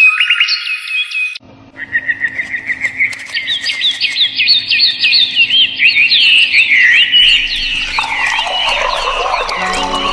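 Birds chirping, a dense run of many quick, repeated chirps that starts after a short break about a second and a half in and slides lower in pitch near the end, with steady music-like tones coming in.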